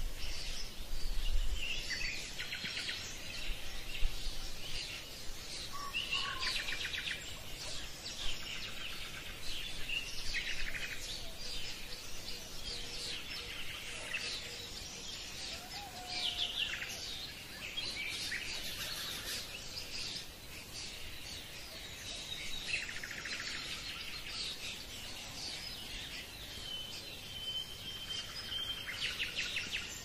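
Small songbirds chirping and trilling in short repeated bursts every few seconds, with a brief steady whistled note near the end.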